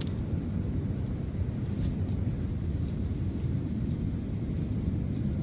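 Wind buffeting the microphone: a steady, fluttering low rumble, with a couple of faint clicks about one and two seconds in.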